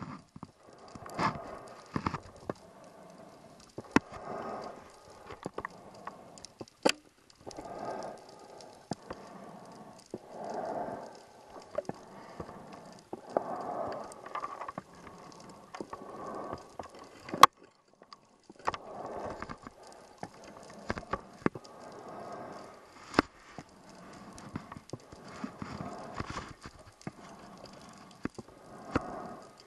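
Scuba diver's regulator breathing heard underwater through the camera housing: a rushing exhaust bubble burst every few seconds, with sharp clicks and knocks in between.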